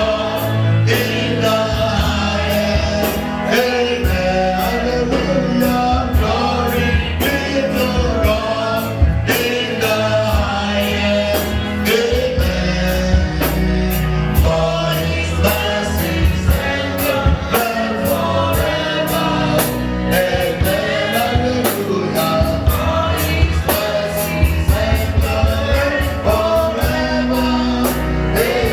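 Live gospel music: voices singing together over bass, keyboard and a steady drum beat.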